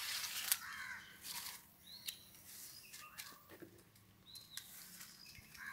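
Birds chirping, several short calls that rise and fall in pitch, with a few sharp light clicks and a faint low steady hum underneath.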